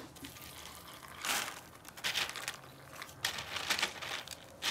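Milk poured from a small plastic bottle onto cereal rings in a bowl, with a few short rustling noises as the bottle is handled.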